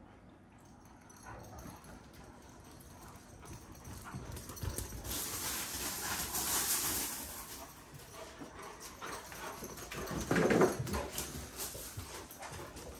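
A young Kangal dog's sounds, with a rising rustling noise around the middle and a short, louder sound about ten seconds in.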